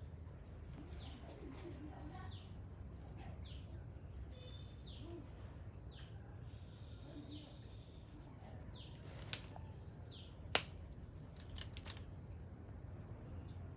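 Outdoor garden ambience: a steady high insect drone with short, falling bird chirps repeating about once a second. A few sharp clicks come in the second half, the loudest about two-thirds of the way through.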